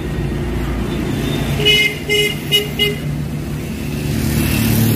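A vehicle horn honks four short times over steady road-traffic rumble. Near the end a hooked fish thrashes and splashes at the water's surface.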